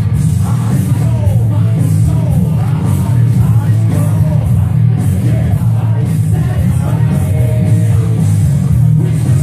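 Loud rock music with a singing voice, playing steadily throughout.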